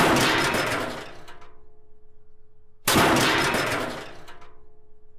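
Two sudden crash-like impact sound effects about three seconds apart, each hitting sharply and dying away over a second or two with a faint ringing tone under the tail. They are title-card effects that mark new words appearing on screen.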